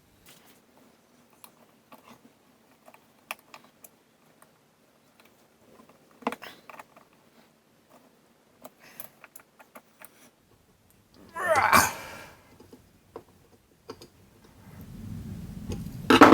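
Small metallic clicks and clinks of hand work on a bench grinder's motor housing, as screws are run in to hold the bearing retaining plate, with a louder clatter about six seconds in, another about twelve seconds in, and a knock near the end.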